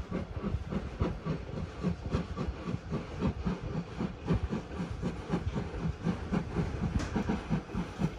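JNR Class C11 steam locomotive working a passenger train, its exhaust beating in a fast, even rhythm with steam hiss.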